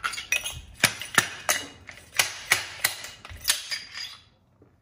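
About a dozen sharp, irregular clicks and clacks of hard parts being handled during a motorcycle fork rebuild, stopping shortly before the end.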